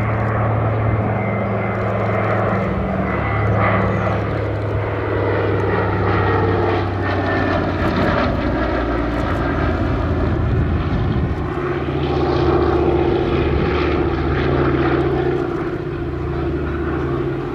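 A Consolidated PBY-5A Catalina's two Pratt & Whitney R-1830-92 radial engines and propellers drone steadily in a low flypast. The engine tone shifts lower about halfway through as the aircraft passes.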